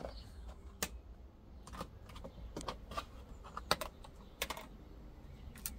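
Irregular light clicks and taps, often in pairs, from a Goffin's cockatoo moving about on the floor of its enclosure.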